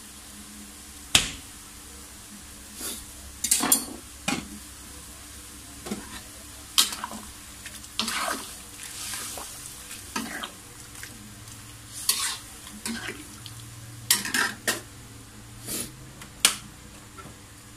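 Ladle stirring a simmering broth in a metal wok, knocking and scraping against the pan in a dozen or so irregular clatters.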